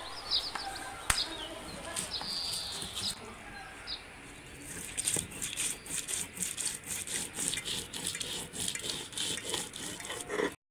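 Stone roller grinding garlic on a ridged sil-batta grinding stone: rhythmic scraping strokes, several a second, from about five seconds in. Birds chirp in the first few seconds.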